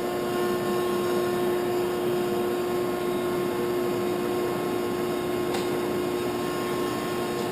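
Landis 2R universal cylindrical grinder running with its grinding wheel spindle turning: a steady machine hum carrying a steady mid-pitched tone. A faint click about five and a half seconds in.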